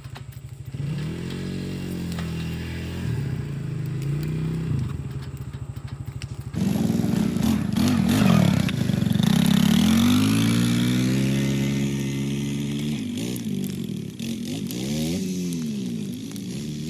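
Small off-road vehicle engines revving up and down again and again as they ride past. About six and a half seconds in the sound jumps abruptly and gets louder, with several engines overlapping.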